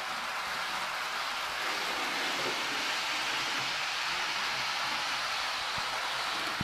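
Model Acela trainset running on its track: a steady whirring hiss of the motor and wheels on the rails.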